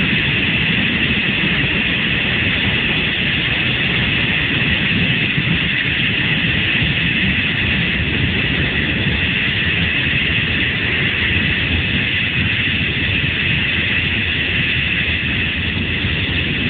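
Steady, loud noise of a motorcycle running at speed, engine and rushing wind mixed together, without a break.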